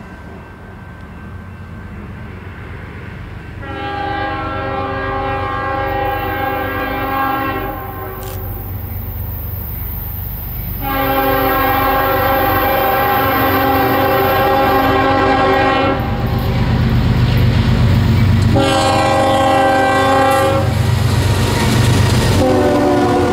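A freight locomotive's air horn sounds the grade-crossing signal as a CSX diesel approaches and passes: two long blasts, a short one, then a final long one, each sounding several notes at once. The diesel's low rumble builds as the train comes close, and the last blast sits lower in pitch as the locomotive goes by.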